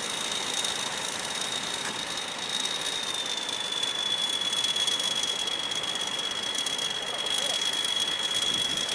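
Combine harvester running, a steady machine noise with a thin high-pitched whine that drops slightly in pitch about three seconds in.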